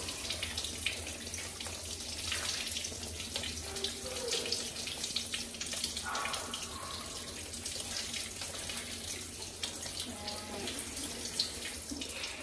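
Handheld shower head spraying steadily, the water splashing onto a baby monkey's fur and streaming onto a plastic stool and tiled floor.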